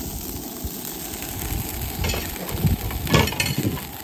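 Oil sizzling in a hot frying pan on a two-burner camp stove, with a few metallic clinks and clatters of cookware and utensils between two and three and a half seconds in.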